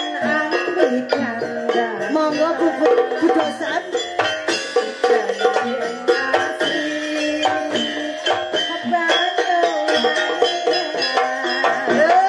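Live amplified campursari music: a woman singing into a microphone over a band with hand drums and percussion keeping a busy rhythm.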